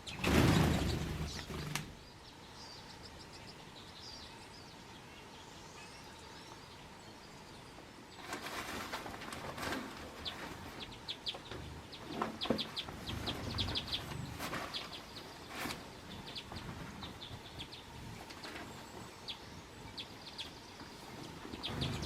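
A flock of small songbirds chirping in short, quick runs of high notes, growing busier from about eight seconds in. A loud rustling burst at the start and a few softer rustles later.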